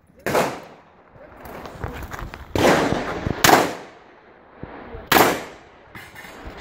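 Revolver fired four times at a slow, unhurried pace: one shot just after the start, two about a second apart in the middle, and one more about five seconds in, each trailing off in a brief echo.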